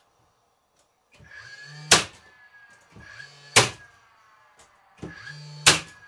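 Cordless nailer firing three nails through a plywood roof panel into the frame. Each shot is a short motor whir followed by a sharp crack as the nail is driven, about one every second and a half to two seconds.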